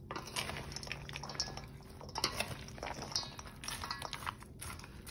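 Crispy chopped pork sisig being tossed with a wooden spatula and a plastic spoon in a stainless steel mixing bowl: irregular crunching and scraping with light clicks of the utensils against the metal.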